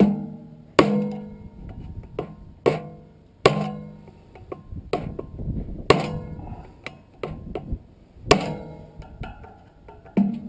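Hammer blows on a furnace blower motor's shaft and blower wheel, struck irregularly about once a second, each hit leaving a short metallic ring. The motor is being driven out of the stuck blower wheel hub.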